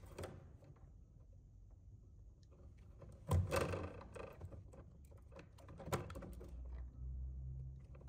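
Wire strippers working the insulation on 12-2 electrical cable, with gloved hands handling the wires. There is a short scraping rustle about three and a half seconds in and a few small clicks around six seconds.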